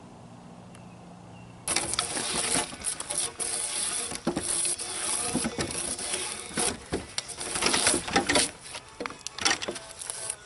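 Drawknife scraping bark off a green spruce log in repeated, irregular rasping strokes, starting about two seconds in. Before that, only quiet outdoor background with a faint low hum.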